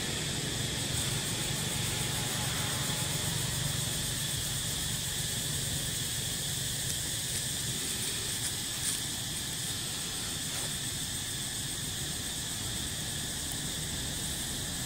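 Steady outdoor ambience: a constant high insect drone, with a low rumble in the first few seconds that then fades.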